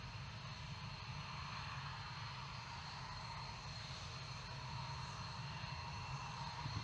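Dassault Mirage 2000 fighter jets taxiing, their single SNECMA M53 turbofan engines giving a steady high-pitched whine over a low rumble.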